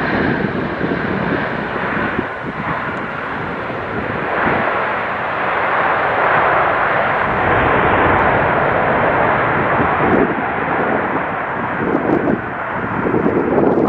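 Jet airliner's engines roaring as the plane passes, swelling about four seconds in and staying loud for several seconds before easing.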